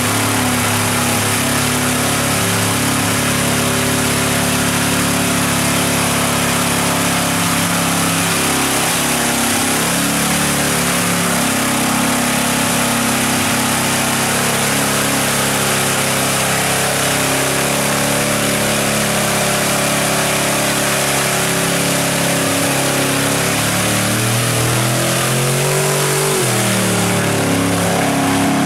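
Lifted Chevrolet pickup's engine held at high revs as its mud tyres churn through a water-filled mud bog, mud and water spraying. The engine note dips and climbs again near the end as the truck drives out of the pit.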